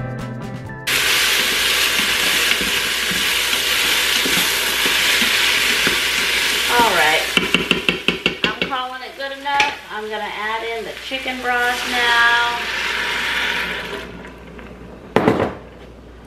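Food sizzling loudly in an Instant Pot on its sauté setting as it is stirred with a wooden spoon; the hiss starts suddenly about a second in and fades away near the end. A single sharp knock follows.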